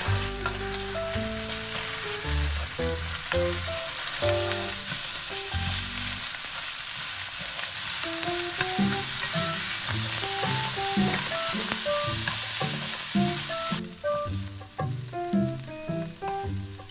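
Spaghetti with shrimp and cherry tomatoes sizzling in a hot frying pan as it is tossed and stirred with wooden chopsticks; the sizzling drops off sharply a few seconds before the end. A light melody plays over it.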